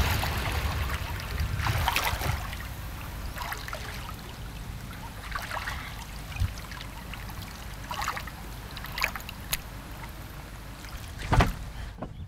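River water lapping and trickling as a person bathes chest-deep, with small splashes every second or so as she moves and washes her shoulders, and a louder sharp sound about a second before the end.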